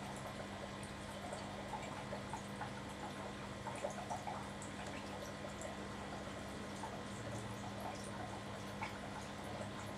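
Aquarium water bubbling and dripping from rising air bubbles, with small scattered pops over a steady low hum.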